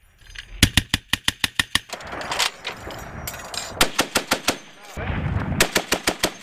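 M2 Browning .50-caliber heavy machine guns firing in short bursts at about seven rounds a second. Three main bursts, the first of about eight rounds and the others of about five, with rumbling echo in the pauses between.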